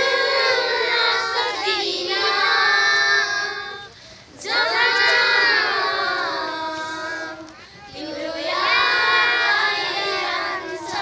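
A group of children singing together in phrases a few seconds long, with short breaks about four and eight seconds in.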